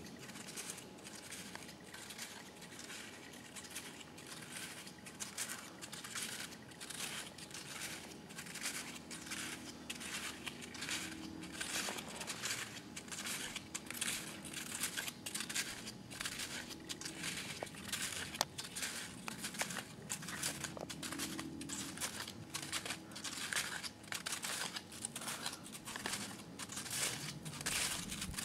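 Snowshoes crunching in snow, step after step at a steady walking pace.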